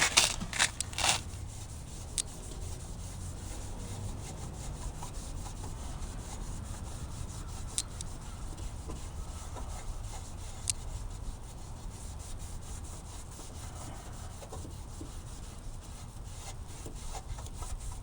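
Cloth scrubbing a gritty baking soda and vinegar paste back and forth over a cloudy plastic turn signal lens: steady, rapid rubbing strokes, a little louder in the first second.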